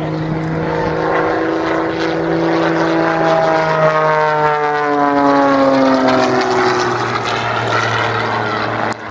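Single-engine propeller aerobatic airplane, about 300 horsepower, making a low pass. Its engine and propeller note grows louder toward the middle and falls in pitch as it goes by.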